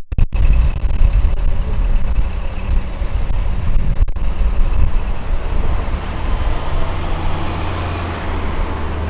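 City street traffic: vehicle engines running and passing with a dense low rumble. From about six and a half seconds in, a large vehicle's engine sets up a steady low drone.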